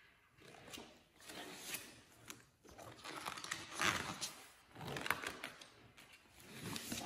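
Pages of a paperback picture book rustling and crinkling as they are handled and flipped over, in a run of uneven swishes with small sharp paper crackles.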